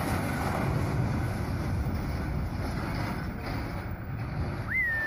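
Wind buffeting the microphone over the low rumble of a heavy lorry. Near the end someone whistles once, a sharp rise and then a held note.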